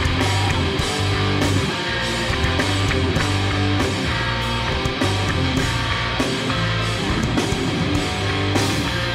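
Hardcore band playing live: distorted electric guitars, bass and a drum kit with regular cymbal strikes, with no vocals in this stretch.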